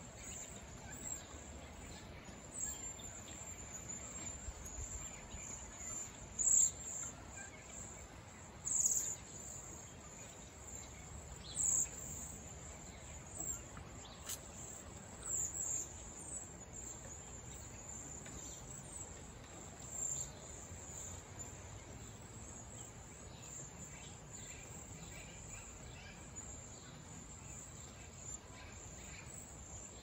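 A flock of cedar waxwings giving their very high, thin trilled calls almost without pause, with several louder calls standing out now and then.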